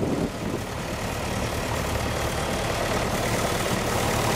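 Vintage Ferguson tractor engine idling with a steady, even beat.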